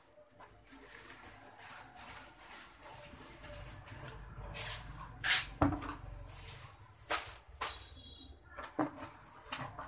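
Thin plastic bag rustling and crinkling with short crackles and knocks, as dry bait powder is tipped from a plastic basin into the bag and the basin is knocked against it.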